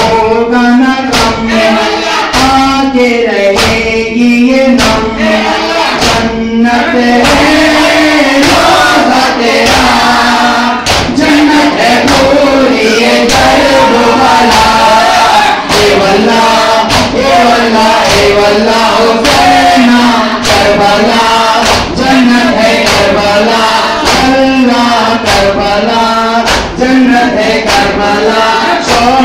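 A noha mourning chant is sung by a male reciter through a microphone, with a crowd of men chanting along. Regular sharp strikes of chest-beating (matam) keep time throughout.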